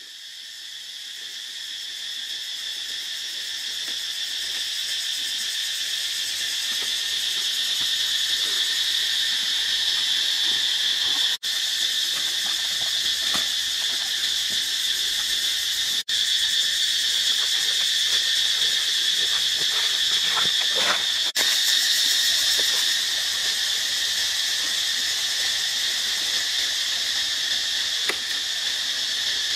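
A chorus of forest insects drones steadily in a continuous high-pitched buzz that fades in over the first several seconds. It cuts out for an instant three times. A few faint crackles come through in the middle.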